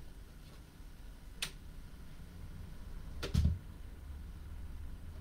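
Handling noises from equipment being switched off and put away: a sharp click about a second and a half in, then a heavier knock with a dull thud a couple of seconds later.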